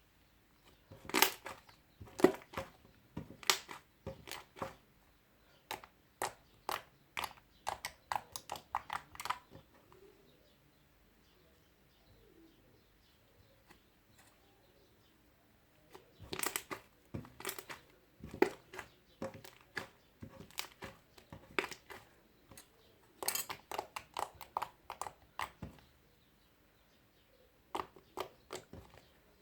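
Homemade glue and shaving-foam slime being squeezed and poked, giving runs of sharp wet clicks and pops in three spells with short pauses between.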